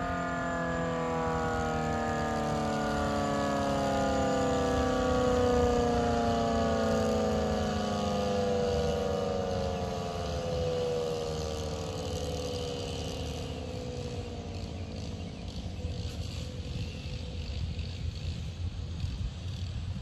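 Federal Signal Model 5T tornado siren winding down at the end of its test: its two-tone wail falls steadily in pitch and fades away about two-thirds of the way through, leaving a low rumble of wind.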